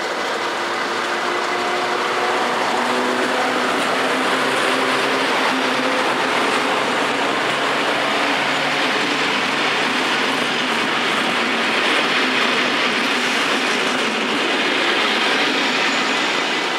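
Dutch Plan U (DE3) diesel-electric train passing close by, its diesel engine running and its wheels rolling on the rails. The sound is loud and steady throughout.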